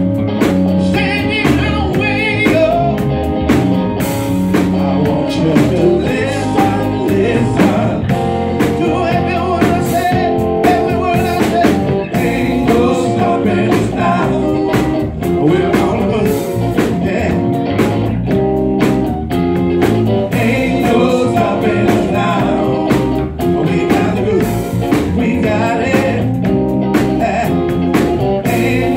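Live band playing with a singer's voice over electric bass, a drum kit and guitar, the drums keeping a steady beat.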